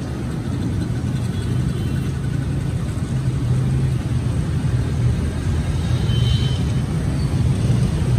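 Steady low engine rumble of motor vehicles, with a brief high tone about six seconds in.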